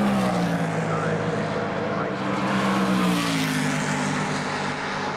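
Formula 5000 racing cars' 5-litre V8 engines going by on the straight, the engine note dropping in pitch as a car passes at the start and again about three seconds in.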